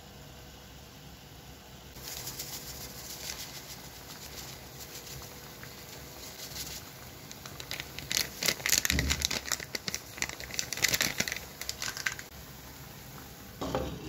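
Mushrooms frying in a pan of bubbling liquid: dense sizzling and crackling that starts about two seconds in and grows loudest and thickest between about eight and twelve seconds. A short handling knock comes near the end.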